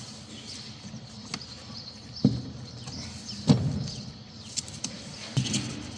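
Scattered knocks and clicks of plastic trim and clips being handled and worked loose in a car's engine bay, with four or five sharp knocks, the loudest about three and a half seconds in.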